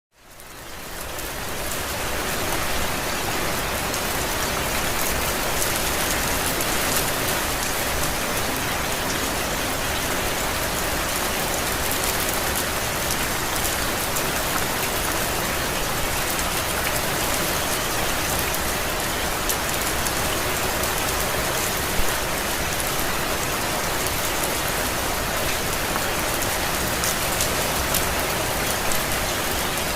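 Steady rain falling on a surface, an even hiss with fine drop ticks. It fades in over the first couple of seconds.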